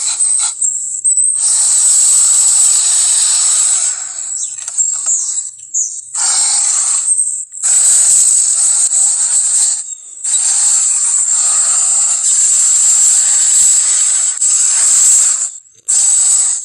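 Movie monster sound effects: a series of long, harsh, hissing roars, one to five seconds each, with short gaps between them.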